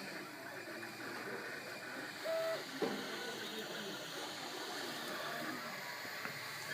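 MakerBot 3D printer at work, its stepper motors whirring with short tones that change pitch as the print head moves. A brief louder tone comes a little over two seconds in, then a click.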